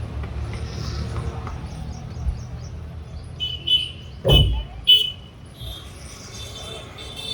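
Steady rumble of street traffic, with four short, sharp sounds in the middle, the loudest one dropping quickly in pitch.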